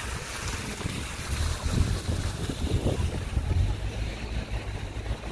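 Wind buffeting the microphone: an uneven, gusting low rumble over a steady hiss.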